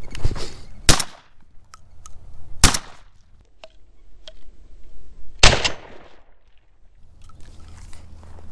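Three shotgun shots: one about a second in, a second under two seconds later, and a third nearly three seconds after that, each with a short echo.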